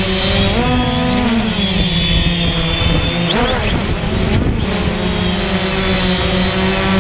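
DJI Phantom quadcopter's motors and propellers whining steadily, heard close up from the drone itself. The pitch rises and falls briefly about a second in, and swings again around three and a half seconds in as the motors change speed to manoeuvre.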